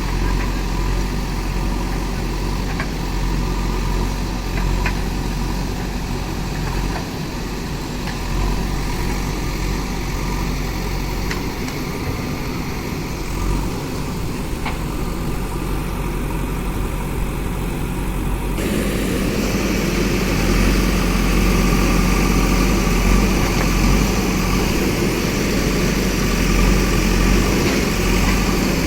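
A backhoe loader's diesel engine running steadily. About two-thirds of the way through, the sound changes abruptly and becomes louder and fuller.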